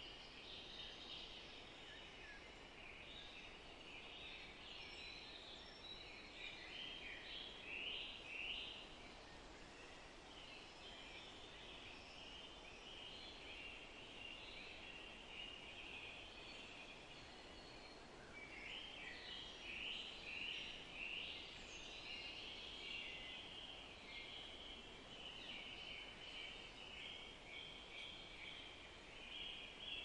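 A faint chorus of many birds chirping and twittering together over a soft steady hiss, thinning out for a few seconds about halfway through before filling in again.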